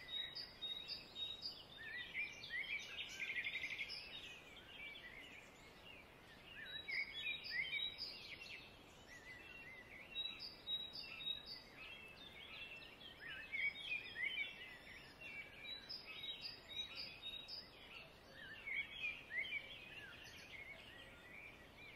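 Small birds chirping in short bouts of quick, sliding high notes that come every few seconds, faint over a light background hiss.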